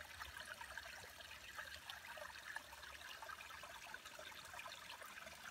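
Faint, steady trickle of a shallow creek running over flat stones.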